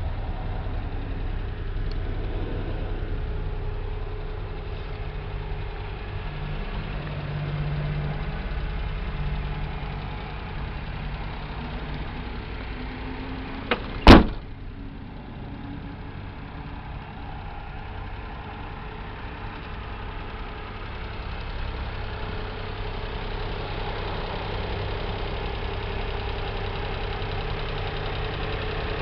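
Honda Acty kei truck's small three-cylinder engine idling steadily. About halfway through, a single loud slam, a cab door being shut.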